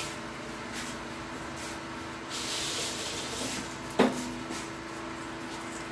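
A cloth wiping a granite countertop: soft rubbing strokes, with a longer scrub about two and a half seconds in, and one sharp knock about four seconds in, over a faint steady hum.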